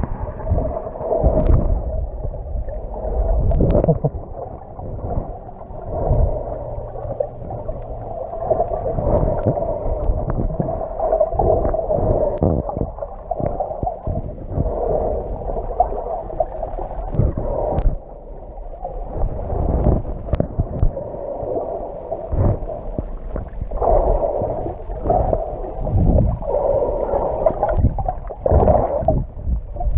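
Muffled underwater noise from a submerged GoPro while snorkelling: water sloshing and rumbling against the camera, swelling and falling every few seconds, with low thumps.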